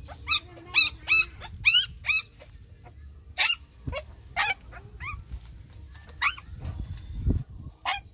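Newborn puppies crying: short, high-pitched squealing yelps, five in quick succession in the first two seconds, then a few more spaced out. The owner takes the crying for hunger. A dull low bump comes near the end.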